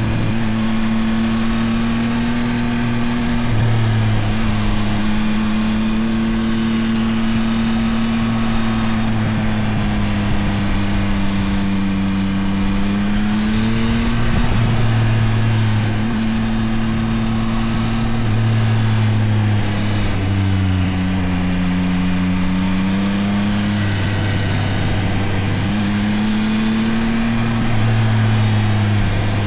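Yamaha Tracer 9 GT+'s 890 cc CP3 inline three-cylinder engine running under way. Its note steps up and down through several gear changes, falls for a few seconds and then rises again, over a steady rush of wind.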